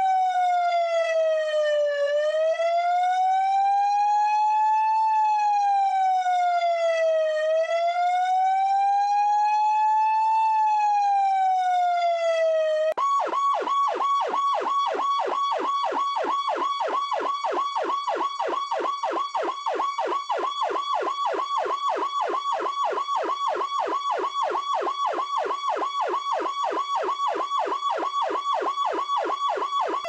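GE Powercall electronic police siren sounding a slow wail that rises and falls about every five seconds. About 13 seconds in it switches abruptly to a rapid yelp, and it goes back to the wail at the very end.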